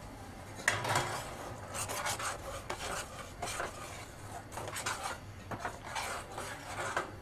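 Metal spoon stirring and scraping around the inside of a stainless steel pot of thickened milk, a string of irregular rasping scrapes against the pot's side and bottom.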